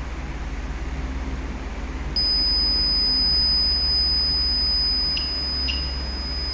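Arduino fire alarm's piezo buzzer sounding a continuous high-pitched alarm tone, starting abruptly about two seconds in, signalling that the flame sensor has detected a flame. Two short clicks, each with a brief lower tone, come near the end.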